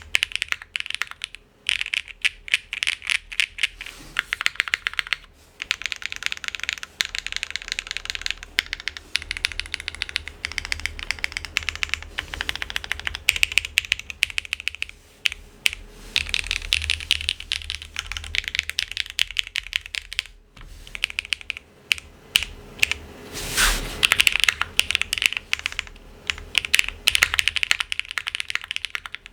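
Typing on a plateless Geonworks W1-AT mechanical keyboard with Gateron x Geon Raw switches and no foam: quick, uneven runs of key clicks with brief pauses. One heavier, longer stroke stands out about two-thirds of the way through.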